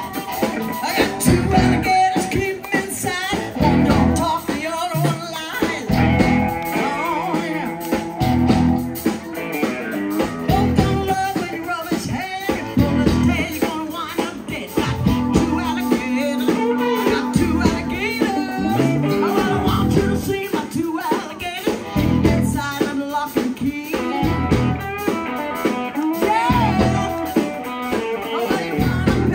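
Live blues band playing through a stage PA: a woman singing lead with blues harmonica, electric guitar, electric bass and drums.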